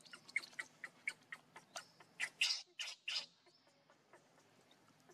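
Baby macaque calling: a quick run of short, high squeaks, then three louder, longer squeals about halfway in.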